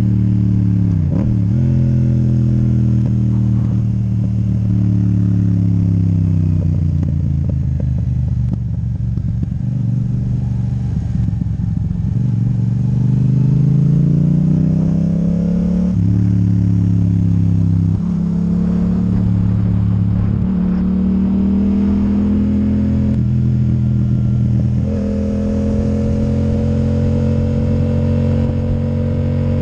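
Yamaha MT-07's parallel-twin engine through an Akrapovic titanium exhaust with the dB killer removed, running under way. It falls in pitch as the bike slows, climbs again as it pulls away, and steps in pitch at several gear changes in the second half.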